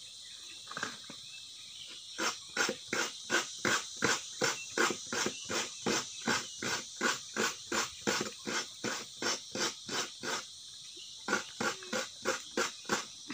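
A coconut half being scraped against the serrated blade of a kabayo, a bench coconut grater. It makes quick, even rasping strokes, about three a second, starting about two seconds in, with a short pause near the end before the strokes resume.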